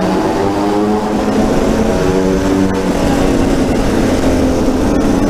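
TM 125 SMR supermoto engine heard from on board while riding. The revs rise and fall several times as the rider works through the throttle and gears, over a rough low rumble.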